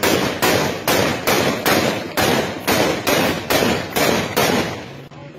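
A rifle fired into the air in steady single shots, about two and a half a second, some dozen in all, with a short pause just before the end.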